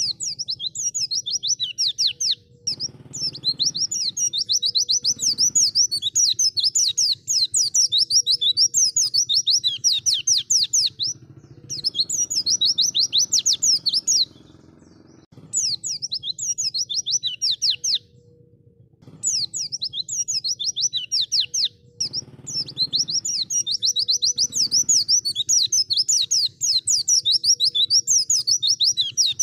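White-eye (pleci) singing a fast, high twittering song: long runs of rapid down-slurred notes, broken by short pauses every few seconds.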